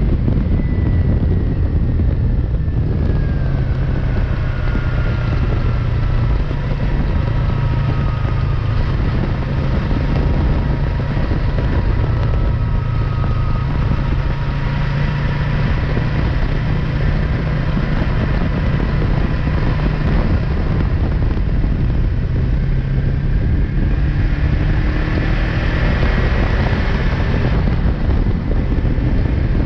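Yamaha MT-03 motorcycle engine running at road speed under heavy wind rush on the microphone. The engine note falls gradually over the first dozen seconds as the bike slows, then climbs again in the last third as it accelerates.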